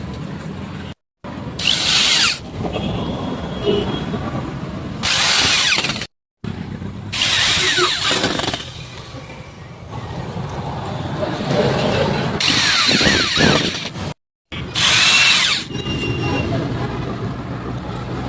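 An electric power tool run in several short bursts on plywood, in a string of quickly cut clips.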